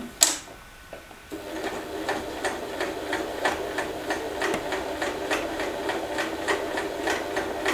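W6 Wertarbeit N1615 electric sewing machine stitching slowly through about nine thick layers of fabric: a sharp click just after the start, then from about a second and a half in the motor runs steadily with the needle striking about three times a second.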